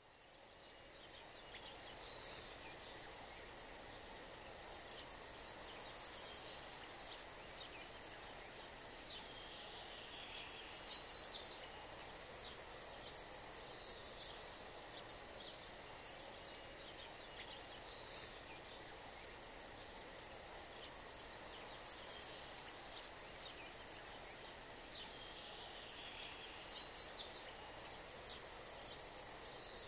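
Night insects chirping: a steady, fast-pulsing high chirp runs under louder buzzy trills that come and go every few seconds. It fades in over the first couple of seconds.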